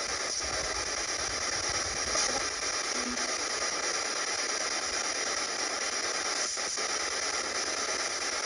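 Steady hiss of static with no distinct knocks or voices in it.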